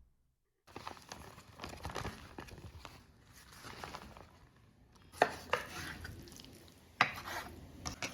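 Food being worked by hand and with utensils in a bowl, rustling and stirring, with a few sharp clinks of a utensil or bowl against dishware, the loudest about five and seven seconds in.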